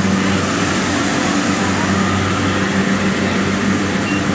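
Kubota DC-70 rice combine harvester running steadily while harvesting: a constant diesel engine hum over the even noise of its cutting and threshing works.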